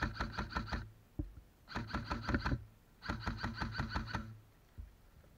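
Airsoft electric rifle firing three bursts on full auto, about ten shots a second. Each burst carries the whine of the gun's motor and gearbox under the rapid clicks.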